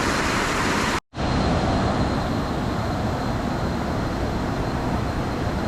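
Waterfall's strong flow rushing, a steady loud noise of water, broken by a split-second dropout about a second in, after which it comes back slightly deeper.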